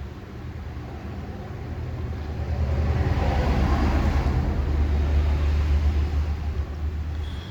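Low rumble of a passing road vehicle, swelling about two and a half seconds in and fading toward the end.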